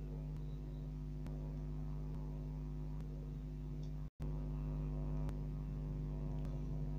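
Steady low electrical hum with a buzzy tone, broken by a brief dropout to silence about four seconds in.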